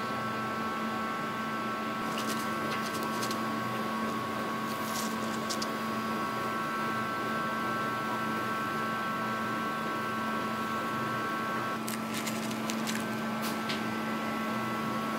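Steady machine hum with a few high whining tones that drop out briefly near the end, and scattered light clicks.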